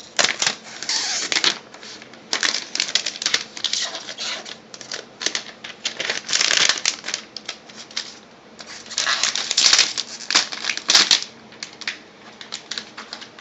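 Protective wrapping being pulled off a new laptop by hand: irregular bursts of rustling with sharp clicks, broken by short pauses.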